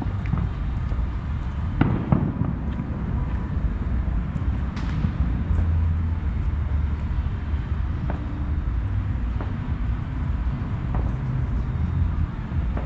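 Fireworks going off: a few scattered sharp pops and bangs, the strongest cluster about two seconds in, over a steady low rumble.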